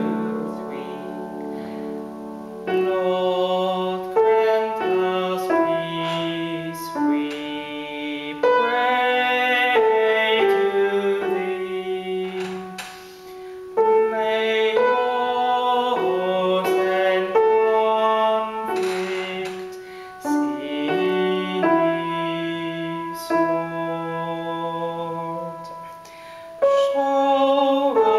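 Electric keyboard playing a slow choral piece in held notes, with a woman's voice singing the soprano line along with it; some sung notes waver with vibrato.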